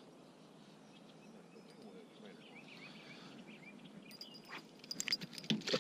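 Outdoor riverside ambience with faint bird chirps, then a few sharp clicks and knocks near the end.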